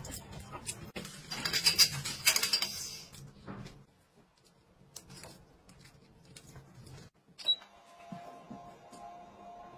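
Clattering and rattling for the first few seconds, then a few sharp single clicks of plastic clothes-peg clips snapping shut on socks on a hanging drying rack, the loudest about seven and a half seconds in.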